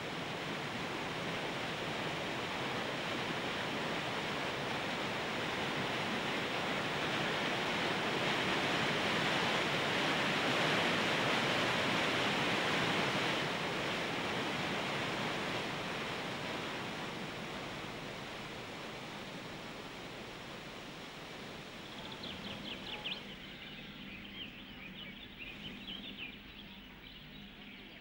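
A steady rushing noise, like wind or surf, swells to its loudest about halfway through and then slowly fades. In the last few seconds, birds chirp with short, high calls.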